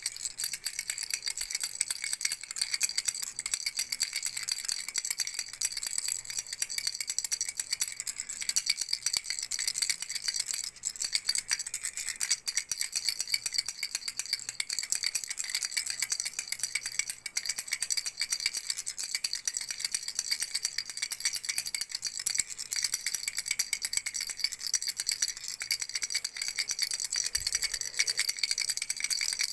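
A frog-shaped baby rattle shaken steadily, a dense, continuous high rattling without pause.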